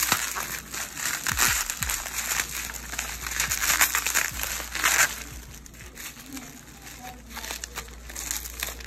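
Plastic bubble wrap crinkling and crackling as hands unwrap an item from it. It is busiest for about the first five seconds, then quieter and sparser.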